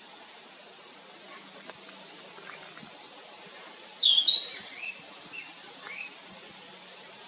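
Narcissus flycatcher singing: a loud, high whistled phrase about four seconds in, followed by three shorter rising whistles, with fainter notes before it.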